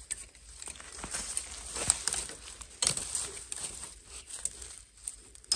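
Dry bamboo leaf litter crackling and rustling as a knife blade works at the base of a wild bamboo shoot, with a few sharp knocks of the cutting, the loudest about two and three seconds in.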